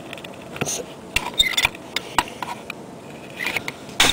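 Light plastic clicks and short scrapes, with a sharper crack at the very end: a plastic tab in a BMW panorama sunroof's guide track being broken off.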